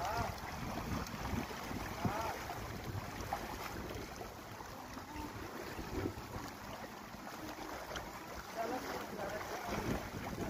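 Wind buffeting the phone's microphone, with choppy lake water lapping in the shallows.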